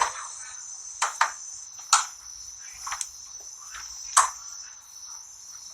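Insects chirring in a steady high drone, with a few short clicks and knocks about one, two, three and four seconds in.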